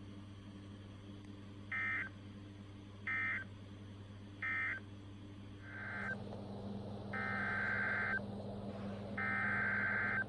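Emergency Alert System SAME data bursts, the buzzy two-tone modem squawk of a weather-radio alert. First come three short bursts about 1.3 s apart, the end-of-message code closing a warning. A little later come longer, second-long header bursts that open the next warning, over a low hum.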